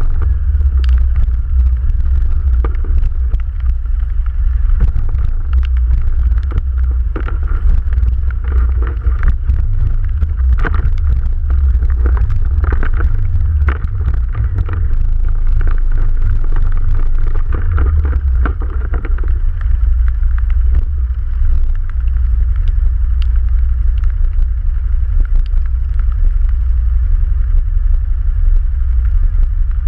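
ATV engine running steadily with a heavy low rumble while riding, with scattered knocks and rattles over rough ground.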